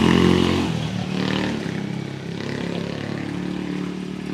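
A motorcycle engine passing close by, loudest at the start and fading away within the first second, leaving a lower steady traffic hum.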